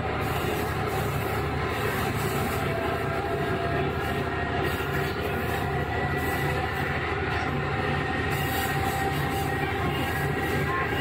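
KiHa 11 diesel railcar with its Cummins engine running, heard from on board: a steady, even engine drone with a faint low pulsing over the rail running noise.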